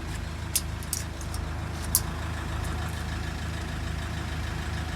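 A motor engine running at a steady idle, a low even hum, with a couple of light clicks about half a second and two seconds in.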